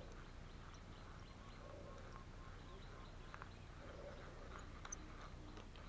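Faint animal calls, short and repeating about every two seconds, over a quiet steady background.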